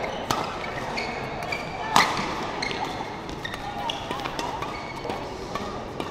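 Badminton rally: sharp racket strikes on the shuttlecock, the loudest about two seconds in, with short high squeaks of shoes on the court floor and a murmur of voices behind.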